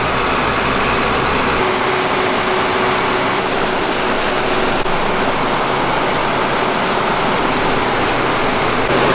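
Large flood-control pumps running, with water churning out of their discharge pipes as a steady, loud rush. The sound shifts abruptly a few times in the first half.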